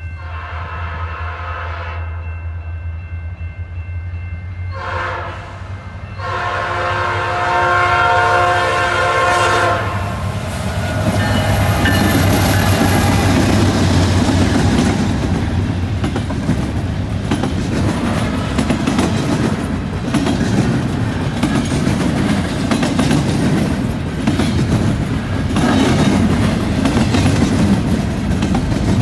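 Canadian National freight train's diesel locomotives sounding their horn in blasts, the last one held about four seconds, then passing close by: engines running and steel wheels clattering in a quick rhythm over the rail joints and junction switch.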